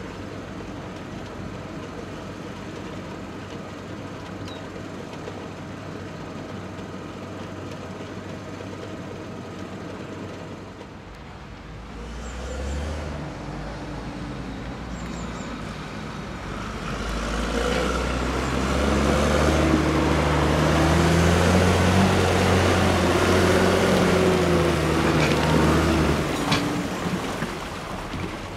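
A Claas tractor's diesel engine runs steadily. About eleven seconds in, a JCB Fastrac tractor pulling a slurry tanker comes along a muddy track, and its engine grows much louder, with the pitch rising and falling, before easing off near the end.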